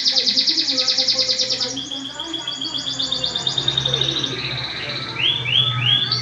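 Domestic canary singing a long roll: a fast trill of rapidly repeated high notes, followed by shorter trills and, near the end, three quick downward-sweeping notes.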